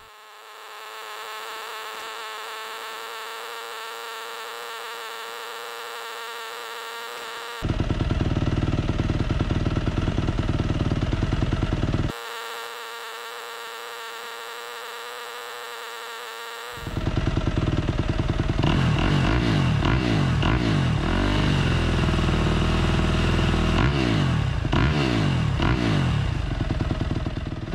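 Yamaha YZ250FX's 250 cc four-stroke single-cylinder engine running as it warms up to operating temperature, a steady note whose deep part drops out and comes back twice. In the last third the revs rise and fall as the throttle is blipped.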